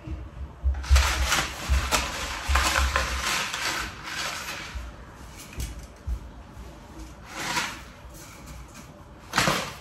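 Dry spaghetti rattling and rubbing against its cardboard box as strands are pulled out by hand. The noise comes in several irregular bursts, the longest about a second in, with low knocks from handling.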